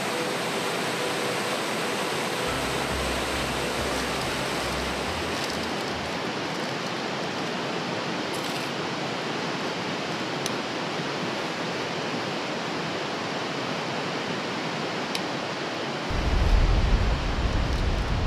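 Steady rushing outdoor noise, with a low rumble coming in about two and a half seconds in and a louder rumble near the end.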